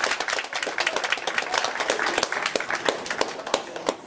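Audience applauding: many hands clapping at once, dying down slightly near the end.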